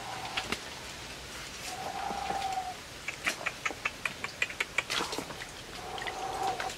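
Dry leaves and twigs crackling underfoot in a run of sharp clicks in the middle, as a man creeps over a leaf-littered stream bed. A soft held note of about a second, made through pursed lips, comes about two seconds in and again near the end.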